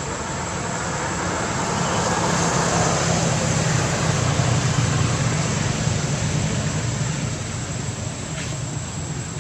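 A motor vehicle passing by, its noise swelling to a peak about halfway and then fading away.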